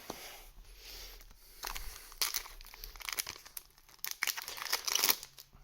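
A foil booster-pack wrapper being torn open and crinkled by hand, an irregular run of crackling and tearing.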